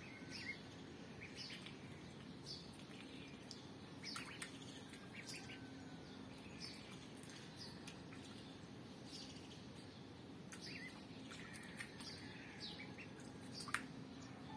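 Faint, high-pitched peeping of a duckling: short falling chirps, irregularly spaced about once a second, over a low steady hum, with one sharp click near the end.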